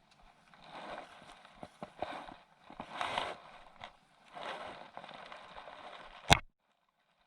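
Seawater washing against a breakwater in three swells, with scattered small clicks, then a sharp knock near the end, after which the sound cuts off abruptly.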